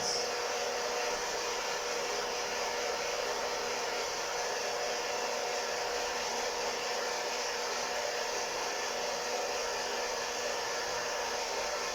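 Hot-air coffee roaster running mid-roast: its fan and heater blow a steady, even rush of air through the tumbling beans, with a faint steady hum.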